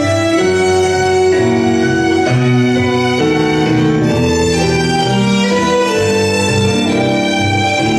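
Tango music led by violins over a pulsing bass line, the melody moving in held notes.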